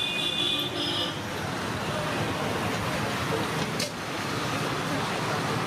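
Steady road traffic noise, with a brief high-pitched squeal in the first second and a single sharp click about two-thirds of the way through.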